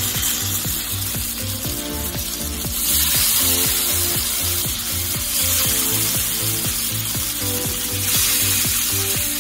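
Marinated fish tikka skewers sizzling in hot oil on a ridged grill pan. The sizzle gets louder about three seconds in and again near the end. Background music with a steady beat plays underneath.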